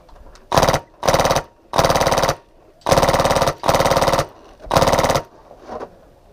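HPA-powered airsoft MK46 light machine gun with a Polar Star Fusion Engine firing full-auto: six short bursts of rapid shots, about half a second each, then a brief weak one near the end.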